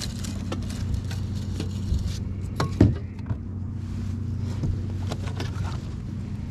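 A steady low motor hum, with scattered clicks and taps and one sharper click a little under three seconds in.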